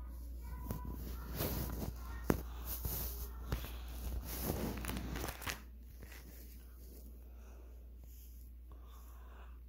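Clear plastic sleeve pages of a card binder crinkling and clicking as they are handled and turned, with one sharp click a little over two seconds in. The rustling stops about halfway through.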